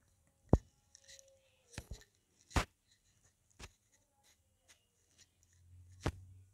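A few sharp, short clicks or knocks at irregular intervals in a quiet room, the loudest about half a second in, at about two and a half seconds, and near the end.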